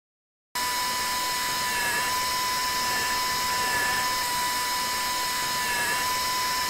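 Contra-angle implant handpiece spinning a 3.5 mm implant drill into a resin jaw model: a steady whine that starts about half a second in, its pitch dipping slightly now and then.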